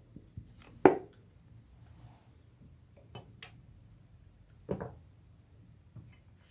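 Kitchen dishes and a spoon clinking as a thick honey-and-herb paste is worked: two sharper knocks, about a second in and near five seconds, with a few softer taps between.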